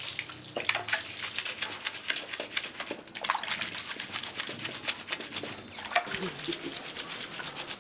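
Liquid splashing and dripping as wet hands dab and rub ñandutí lace stretched on a wooden frame, in a quick, irregular patter of small splats.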